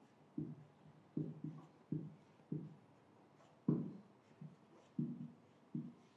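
Marker pen writing on a whiteboard: about ten short, low knocks at irregular intervals as the pen strokes press against the board, each ringing briefly.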